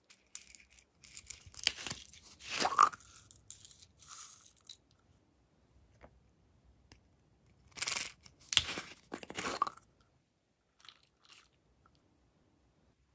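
Crinkly, crunchy handling of plastic containers and packaging as sequins and confetti toppings are added to slime, in two spells with a few light clicks near the end.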